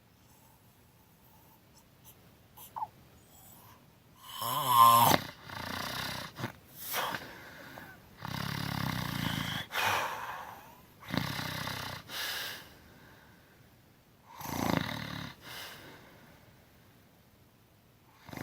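A person snoring with the mouth open. The first four seconds are quiet, then a loud snore with a rattling buzz comes in, followed by a run of irregular snoring breaths in and out. There is a short pause a couple of seconds before the end of the run.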